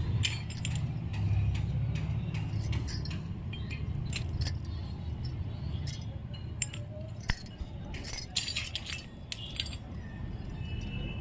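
Miniature stainless-steel toy pots and bowls clinking as they are picked up and set down on concrete, in irregular light clinks and taps over a steady low rumble.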